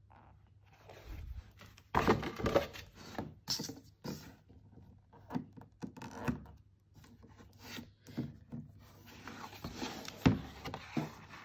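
Pages of a large fold-out picture book being turned and handled: irregular strokes of paper rubbing and rustling, with a sharp tap near the end.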